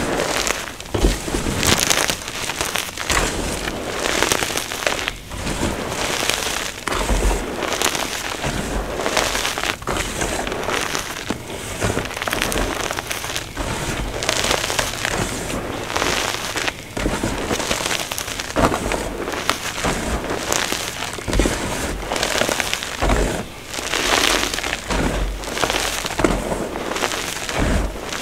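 Hands squeezing and crumbling a heap of soft, powdery reformed chalk with small lumps in it: a continuous dry crunching and crackling, with frequent louder crunches as handfuls are crushed.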